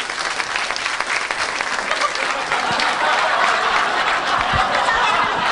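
Audience applauding, the clapping swelling over the first couple of seconds and then holding steady.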